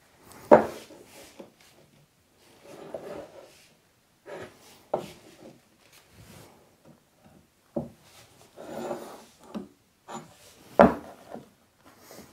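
Workbench handling sounds while glued-in oak table legs are wiped with a cloth and checked with a square: short stretches of cloth rubbing, broken by a few sharp wooden knocks and clacks, the loudest about half a second in and just before the end.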